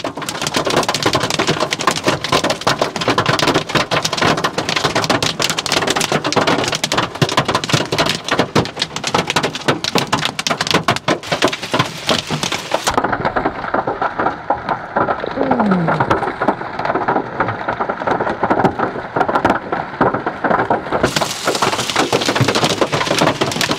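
Heavy rain coming down hard: a dense, loud, continuous patter of drops striking a surface.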